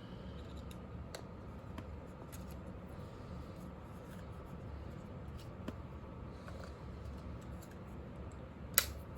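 Small plastic clicks and handling sounds as a Ring video doorbell is fitted to its mount, with one sharp, much louder click near the end.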